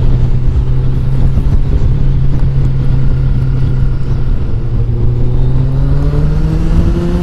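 Motorcycle engine running at a steady speed, its pitch climbing a little in the last couple of seconds as it picks up speed, over a low rush of wind noise on the microphone.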